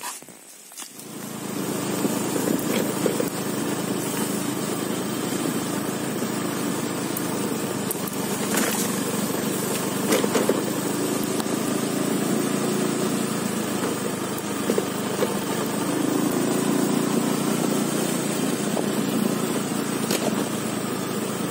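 Small motor scooter engine comes in about a second in, then runs steadily as the scooter is ridden along a dirt trail.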